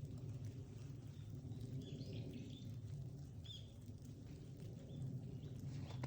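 Small birds giving a few short chirps, in a cluster about two seconds in and again a second or so later, over a steady low outdoor hum.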